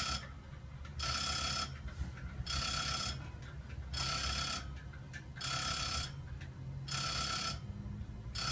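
Railway level-crossing warning bell ringing in repeated bursts, about one every second and a half, with a low steady rumble underneath.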